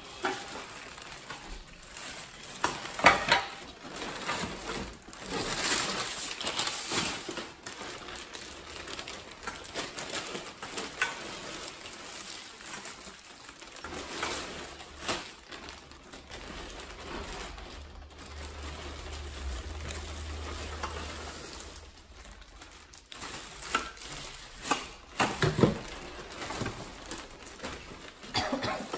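Plastic packaging bags and cardboard crinkling and rustling as wrapped cradle parts are handled and lifted out of a box, in irregular bursts with a few short knocks.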